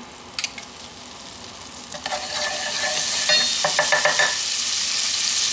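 Butter melting and sizzling in a hot pan, the sizzle swelling up about two seconds in and holding steady, with a utensil clinking and scraping against the pan as it is stirred.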